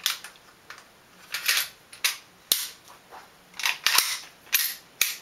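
Full metal slide of a Snow Wolf M92 gas blowback airsoft pistol being worked back and forth on its metal frame by hand: a series of sharp metallic clacks, several in quick pairs as the slide is pulled back and snaps forward.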